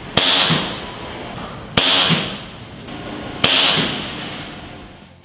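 Umarex Gauntlet .25 caliber PCP air rifle firing three shots about a second and a half apart, each a sharp crack followed by about a second of echo. The reports peak at 100.3 dB on a sound level meter beside the gun.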